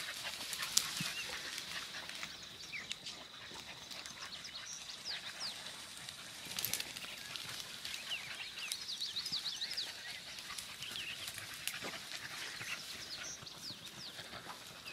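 A pack of rabbit-running beagles baying faintly at a distance, giving tongue as they run a rabbit's trail.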